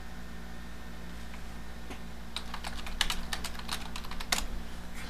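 Typing on a computer keyboard: a quick run of about a dozen keystrokes starting about two and a half seconds in, with one louder stroke near the end, over a faint steady hum.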